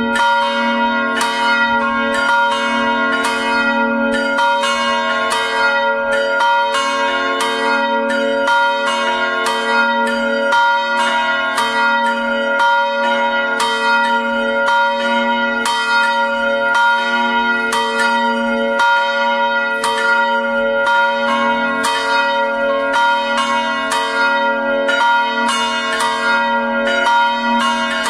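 Three swinging bronze church bells ringing together in a full peal, their strike notes B♭, C♯ and F♯, with clapper strokes coming several times a second in an irregular overlapping pattern over a continuous hum of tones.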